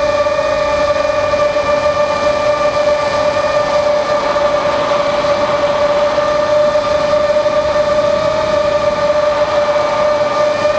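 Brushless motors and props of a small FPV racing quadcopter (1306 3200KV motors, Gemfan 4045 props) whining steadily in flight, with rushing air noise, picked up by the onboard camera. The pitch rises slightly about eight seconds in.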